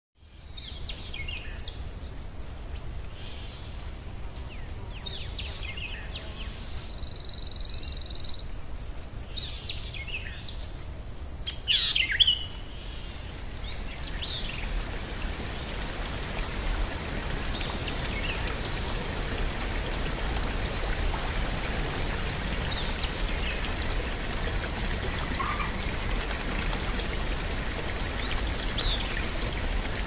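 Woodland birds chirping and singing, the loudest call about twelve seconds in, over a steady hiss of running water. After about thirteen seconds the birdsong thins out and the water hiss grows louder and dominates. A faint, steady high whine runs underneath.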